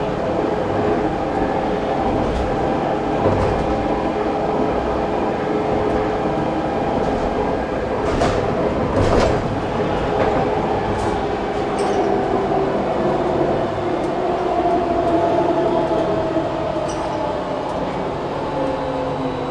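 Alstom Citadis 302 light-rail tram running, heard inside the passenger car: a steady rumble of wheels on rail under an electric drive whine that shifts in pitch and falls over the last few seconds. A couple of sharp knocks come about halfway through.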